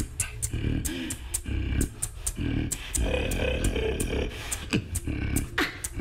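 Beatboxing with the lips held open by a cheek retractor: a deep, mostly throat-made bass running under a quick, even run of crisp hi-hat-like clicks.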